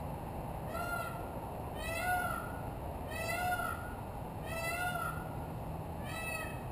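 Peacock calling: five short calls, each rising and then falling in pitch, a little more than a second apart.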